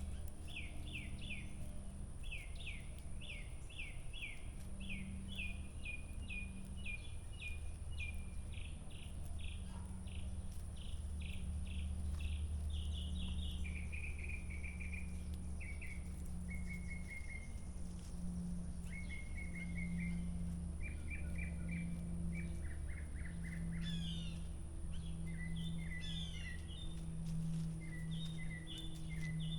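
Songbirds singing: a long run of quick, downward-sweeping notes, about three a second, gives way about halfway through to shorter trills and scattered chirps, over a steady low hum.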